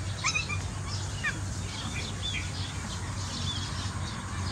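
Small birds chirping in short high calls over a steady low hum, the loudest a few gliding squeaks in the first second and a half.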